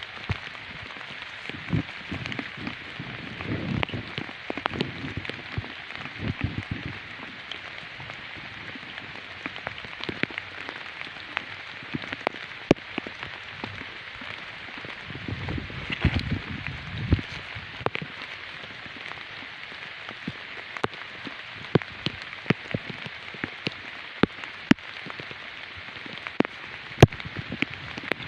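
Steady rain pattering, with many sharp drips and bursts of low rustling now and then.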